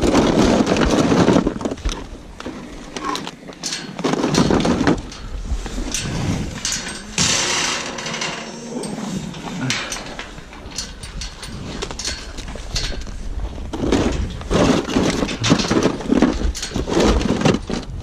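Highland cattle eating bread at a metal gate: irregular crunching, rustling and knocks, with wind rumbling on the microphone throughout.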